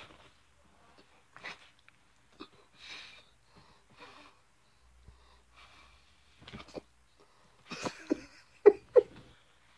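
A person blowing short puffs of air at a dog's face, a second or so apart, with louder, sharper breathy huffs near the end.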